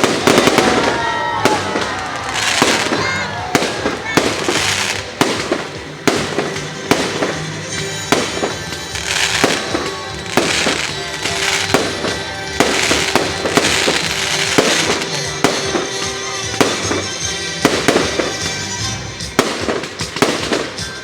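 Fireworks display: a dense, continuous run of sharp bangs and bursts, with music playing underneath.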